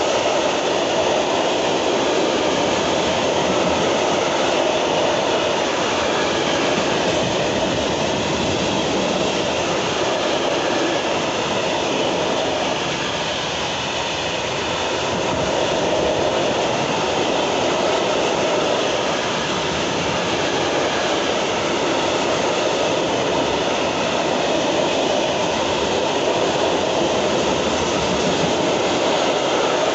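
Freight train of open-top wagons rolling past at speed, a loud steady rumble and rattle of wheels on rail.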